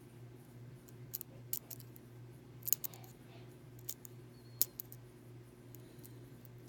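Lock pick and tension wrench working the pins of a hardened steel pin-tumbler padlock: sparse, irregular small metallic clicks, two of them louder near the middle, as pins are set one by one. A steady low hum runs underneath.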